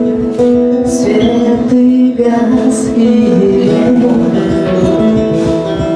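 Live song: a singer holds long, drawn-out notes over acoustic guitar accompaniment.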